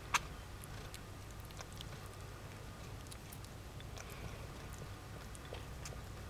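Faint scattered wet clicks of a 16-day-old Ragdoll kitten sucking and chewing on its own paw, over a low steady hum. One sharp click just after the start is the loudest sound.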